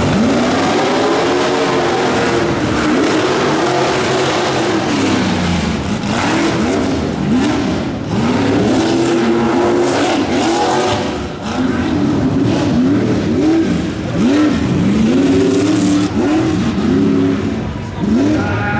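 Tuff truck Ford Bronco's engine revving hard again and again, its pitch climbing and falling in long sweeps at first, then in quicker, sharper bursts of throttle.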